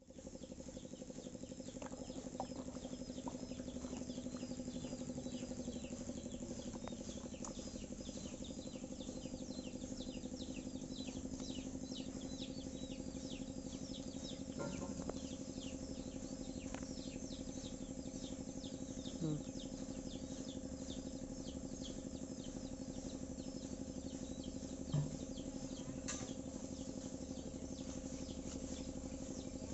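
Many rapid high chirps repeat throughout, from small birds in the tree, over a steady low hum. A couple of faint knocks come partway through.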